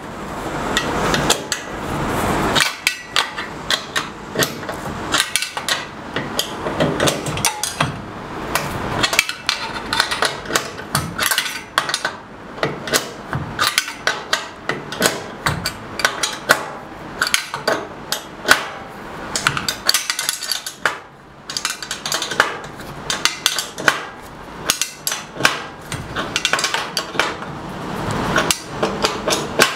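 Wrench working on the bolts that hold a fence rail to a table saw: many irregular metal clicks, clinks and taps as the tool is fitted on and the bolts are tightened in a tight space.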